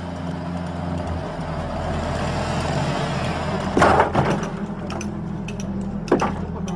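A heavy vehicle's engine running with a swelling rush of noise, and two loud knocks, one about four seconds in and another about six seconds in.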